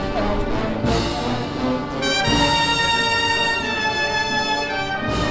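Slow, solemn brass music with held chords and a few drum strokes, in the manner of a funeral march.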